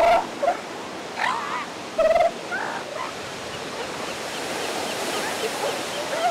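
Elephant seals calling: four short, loud yelping calls in the first two and a half seconds, over a steady wash of surf.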